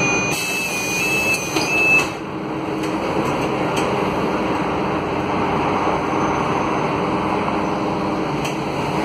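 Scania K280 bus's DC09 five-cylinder diesel and ZF Ecolife automatic transmission running steadily, heard from inside the passenger cabin. For the first two seconds an electronic beeper sounds a run of stepping high tones over the drone, ending in a brief louder moment.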